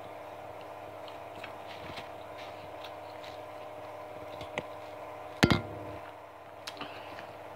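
Close-up chewing of crispy fried chicken: soft, wet mouth clicks and crunches, over a steady hum. One sharp knock, the loudest sound, about five and a half seconds in.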